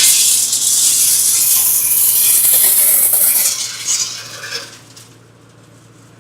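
Candlenut shell-cracking machine with a dense, high rattling clatter of nuts being cracked against its metal parts, starting abruptly, then thinning out and dying away after about four to five seconds over the machine's steady low hum.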